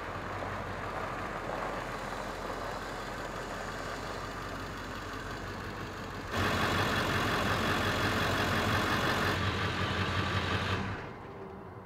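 Diesel Ford F-350 pickup carrying a truck camper, driving with steady engine and road noise. The noise jumps louder about six seconds in and drops away again near the end.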